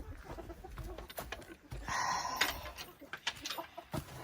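Silkie chickens clucking softly, with scattered small clicks and a brief noisier rush about halfway through.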